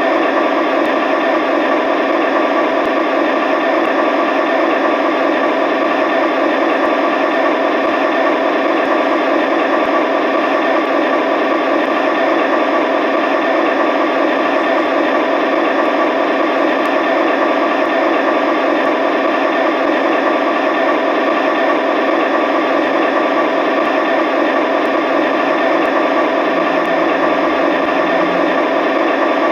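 DCC sound decoder in an LGB G-scale SD40 model diesel locomotive playing a diesel engine idling sound through the model's small speaker: a steady, thin rumble with little bass.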